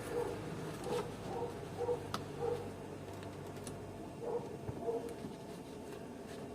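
Faint scattered clicks and light taps of hands working at a stuck plastic trim part on a car's windscreen surround.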